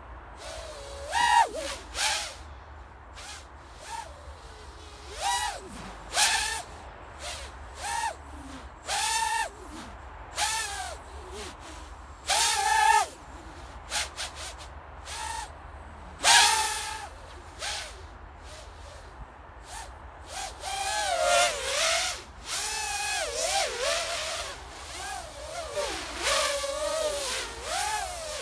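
Eachine Tyro99 FPV racing quadcopter flying, its four brushless motors (2206, 2150 kV) whining in short bursts as the throttle is punched, the pitch rising and falling with each burst. Near the end the whine runs almost without a break, swinging quickly up and down in pitch.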